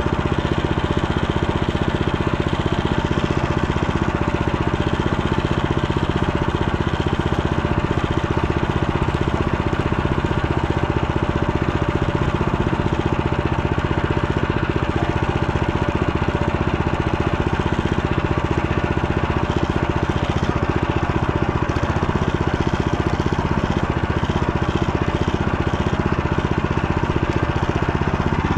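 Motor Sich motorbike engine running at a steady, even speed, with no revving up or down.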